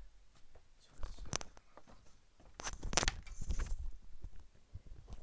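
Rustling and clicking handling noises of a person moving about close to the microphone and settling in front of it, louder about a second in and again for about a second around three seconds in.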